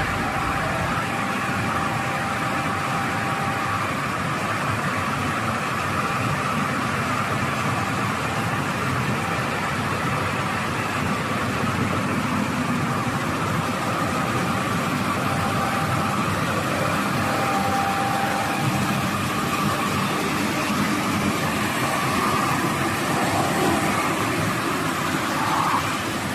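Horizontal glass washing machine (WH-2500C) running steadily: a constant mechanical hum with an even hiss over it.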